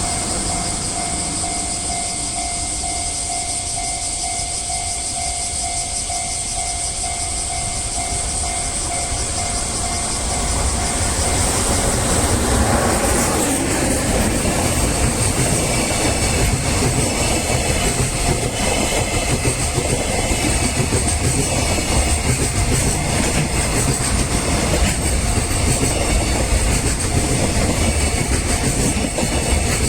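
Level crossing warning bell ringing in an even pulse. From about ten seconds in, a freight train hauled by an EF210 electric locomotive passes through the crossing, and the steady rumble of its wheels on the rails grows louder and covers the bell.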